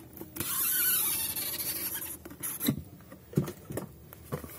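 Cardboard box sliding out of its cardboard sleeve: a scraping rustle for about two seconds, then a few light knocks as the box is handled.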